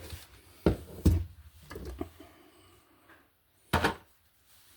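Handling noise from wiring work on an electrical outlet: a few separate sharp knocks and clicks, two close together about a second in, a couple of softer ones around two seconds, and one more near the end.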